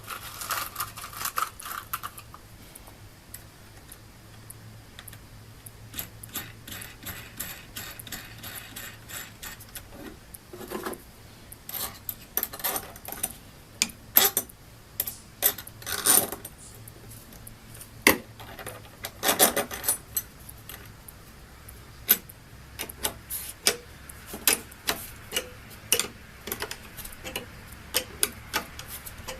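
Irregular metal clicks and clinks, some in short runs of quick even ticks, from carriage bolts, washers and nuts being handled and fitted to a strap hinge.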